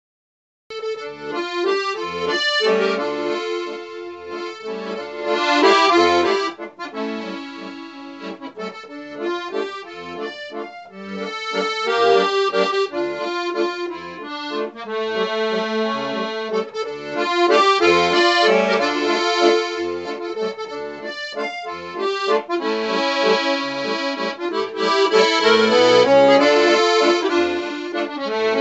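Accordion playing an old Russian waltz, with melody over repeated bass notes; it starts just under a second in.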